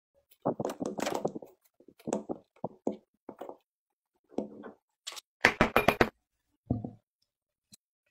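Green kinetic sand crunching and crumbling in a run of short, crisp, gritty bursts with pauses between them. The longest and loudest burst comes between about five and a half and six seconds in.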